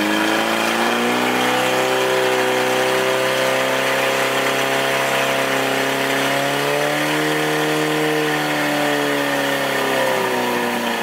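Portable fire pump's engine running flat out while pumping water through the hoses to the nozzles. Its pitch holds high and steady, sags briefly near the end and climbs again.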